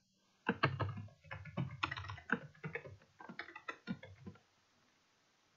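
Typing on a computer keyboard: a quick, uneven run of keystrokes that stops about four and a half seconds in.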